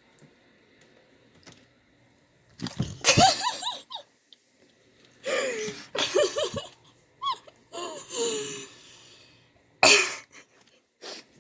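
Quiet at first, then a string of breathy bursts of stifled human laughter with short falling "ha" sounds, loudest about three seconds in and again near the end.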